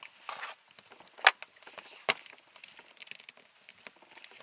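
Hand-handling noises from working a rubber roller-ski tire bead off its rim: a brief scraping rub near the start, scattered light clicks, and two sharp clicks about a second and about two seconds in, the first the loudest.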